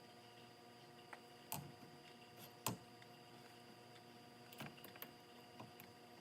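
Near silence with a faint steady hum and a handful of small clicks and taps from handling the steering wheel's mounting bolts and hardware. The loudest click comes about two and a half seconds in.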